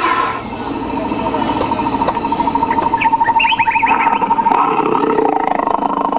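Bio-acoustic wild boar repeller's loudspeaker playing its sequence of recorded animal calls, meant to drive wild boar off the crop. It plays a steady pulsing tone, which gives way to a rougher, rapidly pulsing call about four and a half seconds in.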